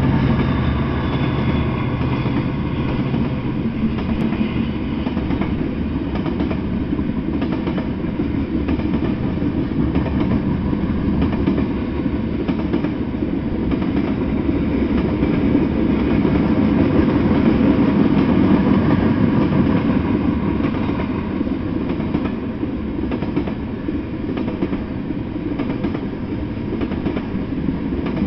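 Freight train passing close by: a steady rumble of steel wheels on the rails as tank cars and a hopper roll past. The hum of the diesel locomotive fades out in the first few seconds.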